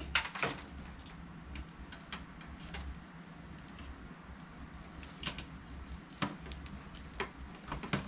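Scattered light clicks and taps of computer parts and packaging being handled during a PC build, irregular and a second or so apart, over a faint low hum.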